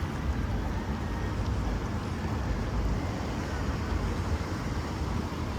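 Steady outdoor city ambience in the rain: an even, low rumble of noise with no distinct events standing out.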